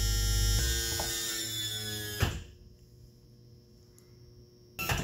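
Single-pump hydraulic unit of a Bigfoot automatic leveling system running as it extends the motor home's rear jacks, a steady electric-motor hum that changes note about half a second in and sags slightly in pitch. It stops with a knock a little over two seconds in as the jacks reach level, and a sharp click follows near the end.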